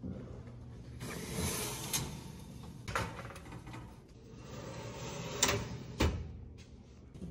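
Metal oven rack sliding on its runners with a scraping rattle, and a few sharp metal clanks as a muffin tin is set on the rack and pushed into the oven.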